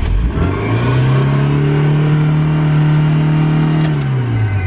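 1999 Honda Civic four-cylinder engine firing up on its first start after a head gasket replacement and racing by itself to a high, steady speed, then falling back near the end. The owner traces the unwanted rev-up to an intake manifold left untightened.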